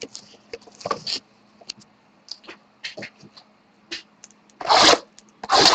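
A sealed box of trading cards being opened by hand: scattered clicks and rustles of cardboard and wrapper, then two louder scrapes near the end, over a faint steady low hum.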